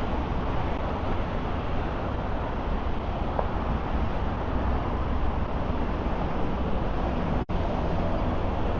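Steady noise of road traffic on a city street, heaviest in the low end, with a brief dropout about seven and a half seconds in.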